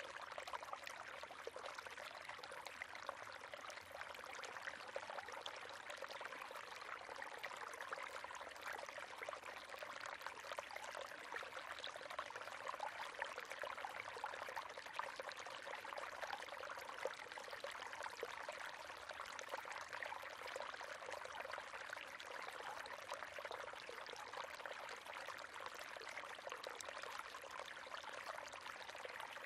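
River water running over stones, a steady splashing and trickling rush with no breaks.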